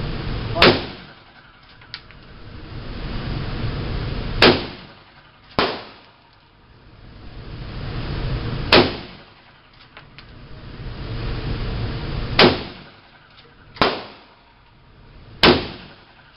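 Gunshots on an indoor shooting range: five loud shots roughly every three to four seconds, with two quieter shots in between. After each loud shot the background drops away and slowly swells back up.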